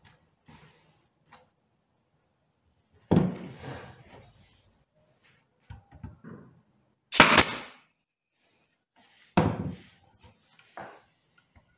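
A pneumatic brad nailer firing once, a sharp crack about seven seconds in, driving a nail through a wooden molding strip into a door-panel frame. Around it come dull knocks of the wood and the tool being handled on the workbench, the loudest about three seconds in.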